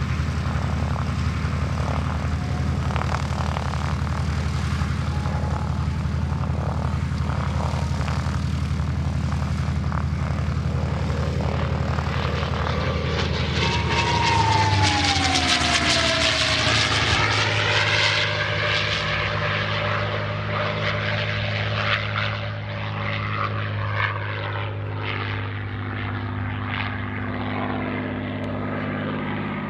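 P-51D Mustang's Packard Merlin V-12 engine and propeller running steadily in flight. About halfway through it makes a close pass, growing louder with its pitch dropping as it goes by, then drones on lower and a little quieter.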